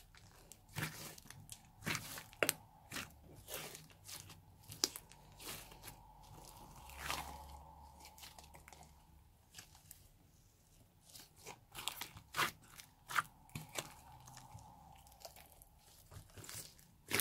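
A large mixed slime being stretched, folded and poked by hand, giving irregular sharp clicks, pops and crackles, with a quieter spell about halfway through.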